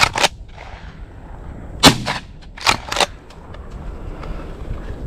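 Shotgun shots: sharp reports just after the start, the loudest about two seconds in, then two more close together about a second later.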